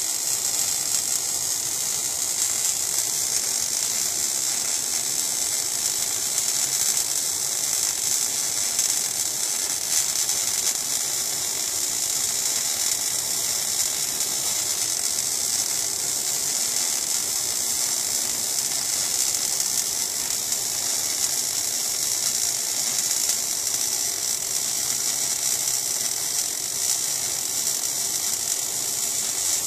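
MAG (gas metal arc) welding arc burning continuously while laying a fillet weld, a steady crackle with spatter.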